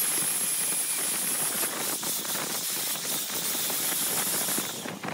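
Angle grinder with a sanding disc running and sanding the flat epoxy-resin and bamboo-chopstick top of a vase: a steady hiss of abrasive on the surface with a high motor whine, dying away near the end.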